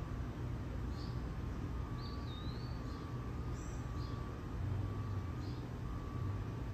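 Faint bird chirps, short calls about every second and a half with one longer warbling call about two seconds in, over a steady low rumble.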